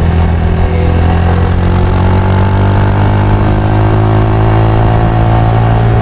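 Motorcycle engine running under way at a steady engine speed.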